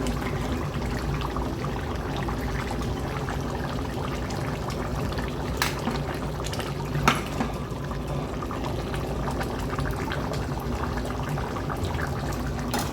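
Pot of egusi soup simmering, a steady bubbling hiss, with three sharp clicks about halfway through and at the very end.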